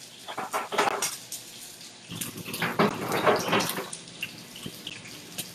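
Chicken pieces pan-frying in hot oil as they finish cooking: a steady sizzle full of small crackling pops, louder for a couple of seconds in the middle.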